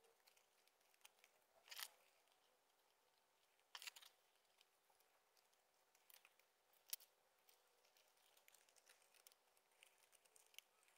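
Near silence with a few faint rustles and clicks of cardboard toy-house pieces being handled and fitted together, clearest at about two, four and seven seconds in.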